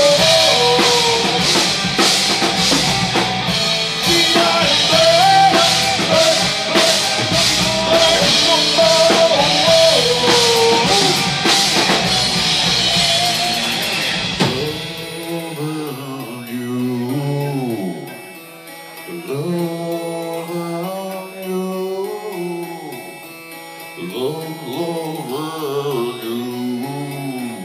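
Heavy metal band playing live: drums, distorted electric guitars and keyboard together at full volume. About halfway through the drums and bass drop out, leaving a quieter passage of a single melodic line with bending notes.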